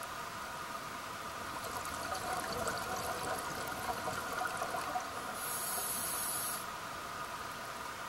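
Scuba diver breathing through a regulator underwater: a few seconds of exhaled bubbles gurgling out, then a short inhalation hiss about five and a half seconds in, over a steady background hum.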